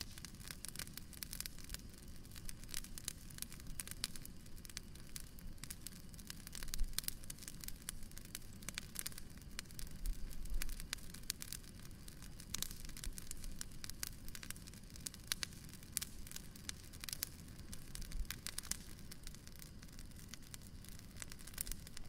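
Wood bonfire crackling, with dense, irregular pops and snaps over a low, steady rumble. A few pops stand out a little louder about seven seconds in and again around ten seconds in.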